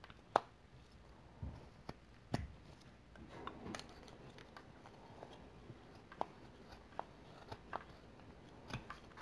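Whittling knife paring basswood: a dozen or so faint, short, crisp cuts and snicks at irregular intervals, the sharpest about half a second in and again about two and a half seconds in.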